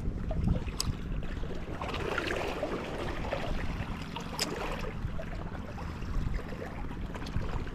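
Wind buffeting an action camera's microphone, with a wash of sea water beneath and two sharp ticks, about a second in and again near the middle.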